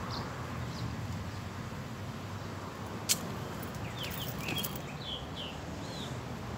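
Birds chirping in a quick run of short calls partway through, over a steady outdoor background hiss, with one sharp click about three seconds in.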